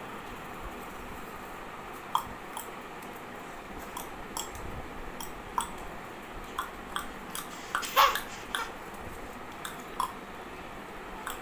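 Paper being ripped and crinkled in a baby's hands: short, sharp tearing crackles at irregular intervals, the loudest cluster about two-thirds of the way in.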